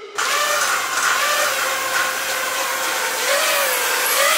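FPV racing quadcopter's brushless motors whining in flight, their pitch rising and falling with the throttle, over a steady hiss of rushing air.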